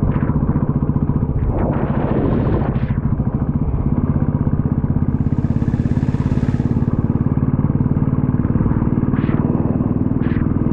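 Motorcycle engine running at a steady cruising speed, with a short rush of noise about two seconds in and a soft hiss around six seconds in.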